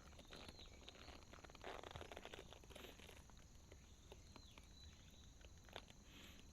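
Near silence: faint rustling and light clicks, with a few faint, short, high mews from a small kitten.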